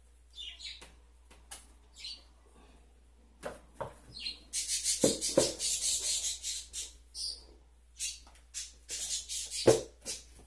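Tomatoes and a red plastic bowl being handled at an open chest freezer: a few short squeaks, then a stretch of rattling and rustling from about halfway in, with thumps, the loudest near the end.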